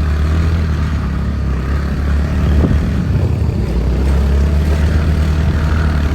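Motor scooter engine running while riding, under a heavy, steady low rumble.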